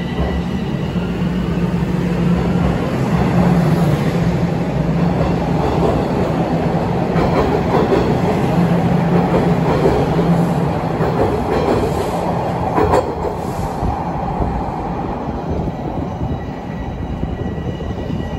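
A TTC Toronto Rocket subway train pulling out of the station alongside the platform, its wheels and motors building over the first few seconds to a loud, steady rumble with a low hum, then easing off as the last cars leave. One sharp click sounds near the end.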